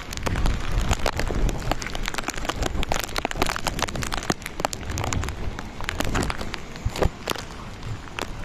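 Rain falling, with drops clicking and tapping irregularly close to the microphone over a steady hiss, and gusty wind rumbling on the microphone.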